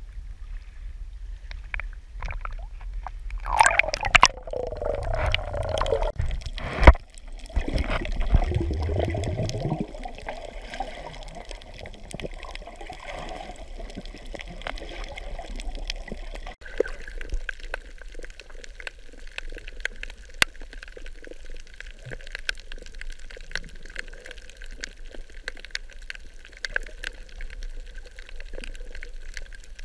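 Water sloshing and gurgling, with a few sharp splashes in the first ten seconds, then underwater ambience on a coral reef: a steady hiss with a constant fine crackle of clicks.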